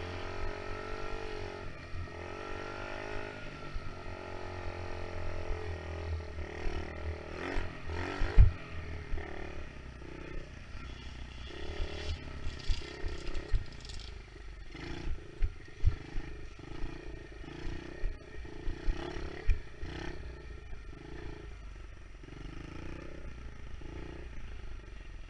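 Small dirt bike engine heard from the rider's helmet camera, revving up and down as it is ridden around a motocross track, with wind rumbling on the microphone. The throttle goes on and off in short bursts with sharp knocks from the bumps, and it eases off near the end.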